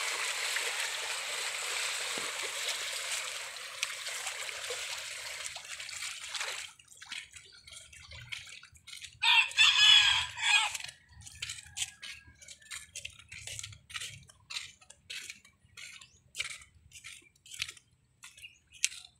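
Small waves washing against a concrete riverbank, a steady rush of water that stops about six seconds in, followed by light slaps of water lapping at the bank about twice a second. A rooster crows once, loudly, near the middle.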